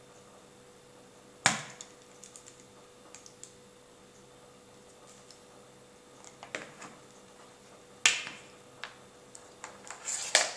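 Sharp plastic clicks and light taps from a hard plastic mussel-shell fishing lure being handled and pressed shut. Three loud clicks come about a second and a half in, about eight seconds in and near the end, with lighter ticks between.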